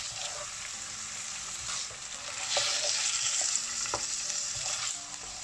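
Chicken livers sizzling as they fry in oil and ginger-garlic paste in a nonstick pan, stirred with a spatula, with a few sharper taps of the spatula against the pan.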